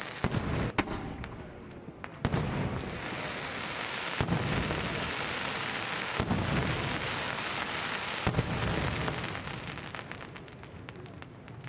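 Aerial firework shells bursting, about half a dozen sharp bangs a second or two apart, with a steady hiss of noise between them.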